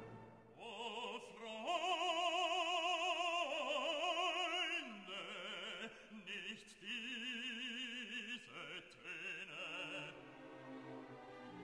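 Operatic singing as background music: a voice holding long notes with wide vibrato, moving to a new pitch every second or two and growing quieter near the end.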